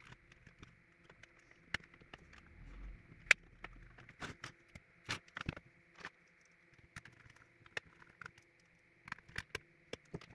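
Irregular sharp clicks, taps and knocks of a bench power supply's sheet-metal case and internal parts being handled during reassembly, with a screwdriver at the case screws near the end. A faint steady high hiss runs underneath.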